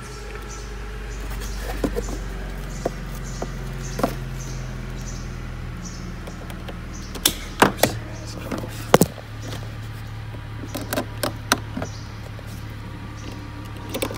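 Battery tester's clamps being fitted onto a car battery terminal and the leads handled: a scatter of clicks and knocks, sharpest about seven to nine seconds in, over a steady low hum.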